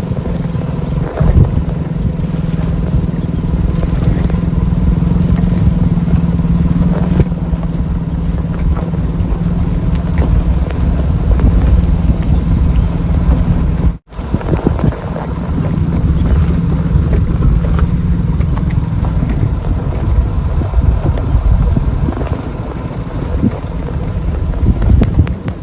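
Wind buffeting the microphone: a loud, gusting low rumble, broken by a brief dropout about 14 seconds in.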